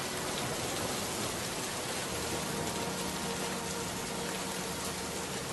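Steady rain falling as an even, unbroken hiss, with faint music in the background holding a few soft notes.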